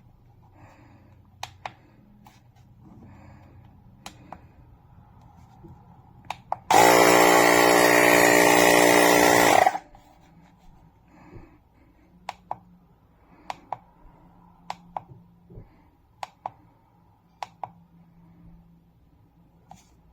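Small electric tyre inflator's piston compressor running in one steady burst of about three seconds, starting and cutting off abruptly. Scattered light clicks come before and after it.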